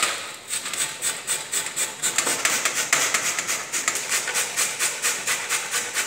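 Zucchini and carrot being grated by hand on a stainless steel box grater standing in a metal pan: quick, even rasping strokes, about four or five a second.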